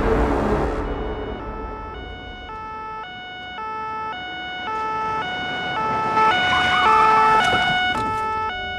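French two-tone police siren alternating steadily between a high and a low note, about two notes a second. It comes in faintly a little over a second in and grows louder as it approaches, easing off slightly near the end.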